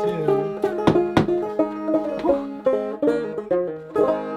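Open-back banjo being picked: a quick run of plucked notes over a steady droning string, the last notes left to ring near the end.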